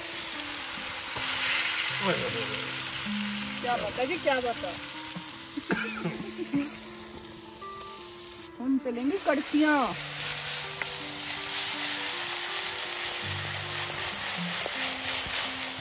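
Grated onion frying in hot mustard oil in a kadhai: a steady, loud sizzle that thins briefly a little past halfway.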